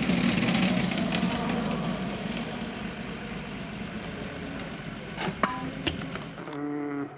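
Rally car engine noise dying away as the car moves off, with a few sharp knocks about five seconds in. Shortly before the end the sound cuts to a different engine running at a steady pitch.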